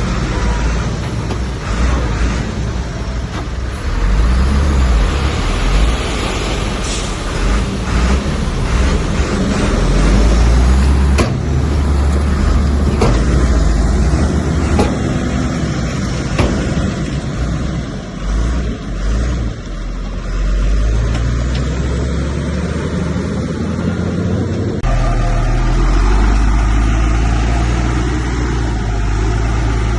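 Heavy diesel earthmoving machinery running and working, a deep steady engine rumble that shifts about 25 seconds in, with a few sharp knocks scattered through the first half.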